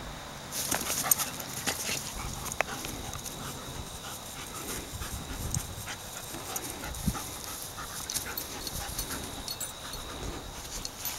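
Labrador Retrievers panting during rough play, with irregular small clicks and rustles of scuffling in the grass starting about half a second in.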